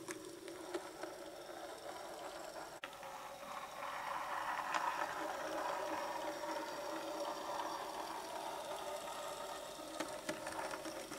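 Bachmann 009 Mainline Hunslet model locomotive running light engine on DC: a faint steady whir of its small electric motor and wheels on the track, growing louder from about three seconds in and easing off near the end.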